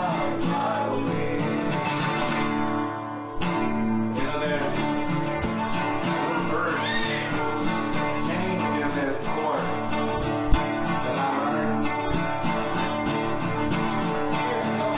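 Country gospel music: acoustic guitar strummed with a singing voice, at a steady level. A single brief knock sounds about ten and a half seconds in.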